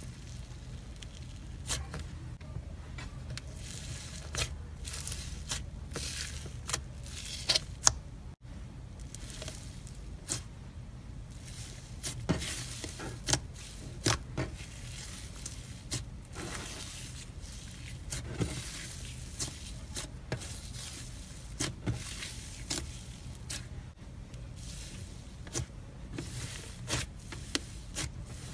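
Fingers poking, squishing and pulling apart a fluffy blue slime with small beads in it, giving irregular soft squishes and short crackly pops, several of them sharp and loud, over a steady low hum.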